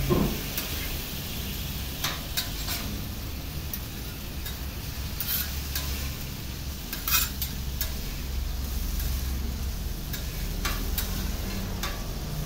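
Shrimp and fish fillets sizzling in sauce on a steel hibachi griddle, with a metal spatula and fork clinking and scraping on the griddle now and then; the sharpest clink comes about seven seconds in.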